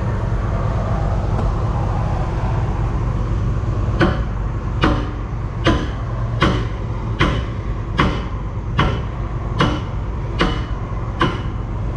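Excavator's diesel engine running steadily while, from about four seconds in, a hammer strikes metal ten times at a little more than one blow a second, each with a short ringing: the big pin for the bucket thumb being driven in.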